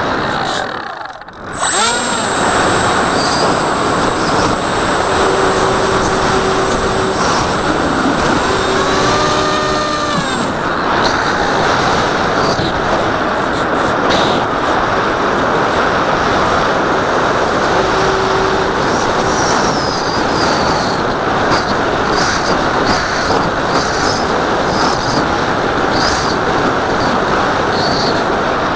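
Rushing wind noise on the nose-mounted camera's microphone of an RC foam jet in flight, with the electric motor and propeller running underneath. The noise drops out briefly about a second in, and a tone rises and falls in pitch around ten seconds in.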